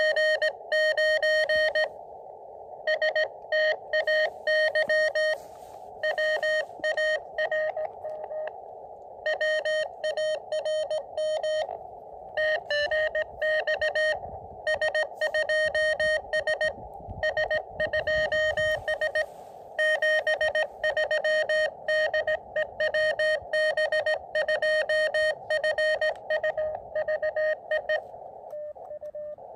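Morse code (CW) from an Elecraft KX2 transceiver: a single-pitched tone keyed on and off in quick dots and dashes, over a narrow band of receiver hiss that fills the gaps.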